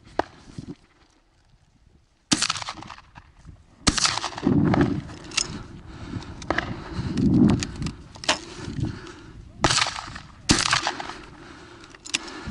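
A volley of hunting shotgun shots fired at driven wild boar. The loudest shots come about two seconds in, about four seconds in, and two close together near ten seconds, with fainter cracks between and each shot ringing out after it.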